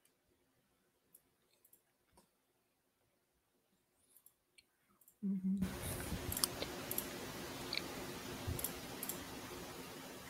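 Near silence for about five seconds, then a microphone's steady hiss cuts in with a short low hum, and a handful of sharp, separate computer mouse clicks are heard over it.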